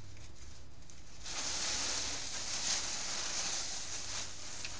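Plastic tablecloth rustling and crinkling as it is lifted and folded, starting about a second in.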